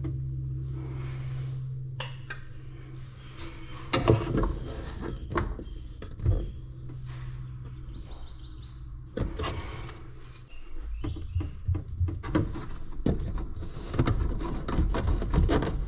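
Irregular knocks, clicks and clatter of plastic waste pipe and fittings being handled and fitted, over a steady low hum in the first few seconds.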